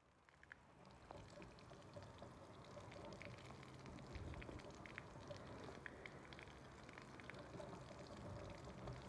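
A stream of water pouring onto the steel blade of a butcher knife held in pliers and splashing onto a tiled floor, rinsing the blade. The sound is faint, fades in over the first second, and carries small scattered splash ticks.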